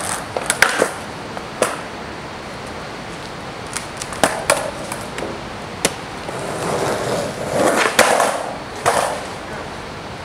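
Canvas sneakers being pulled off and handled on a concrete floor: scattered sharp knocks and taps with rustling, busiest around eight seconds in.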